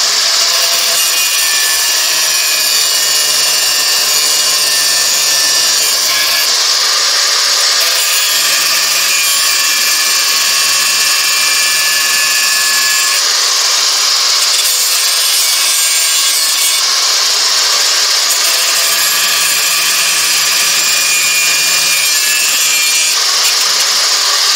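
Angle grinder with a thin cutting disc cutting through a high-carbon steel metalworking file held in a vise. It gives a loud, continuous high whine and rasp of the disc in the steel, whose pitch shifts a few times as the disc bites and eases.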